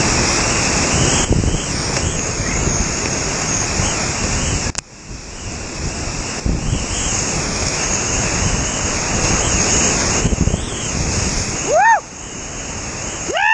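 Loud, steady rush of flooded whitewater rapids churning around a kayak, heard close up at the boat's bow; the rush drops off suddenly for a moment about five seconds in. Near the end a paddler lets out a short whoop.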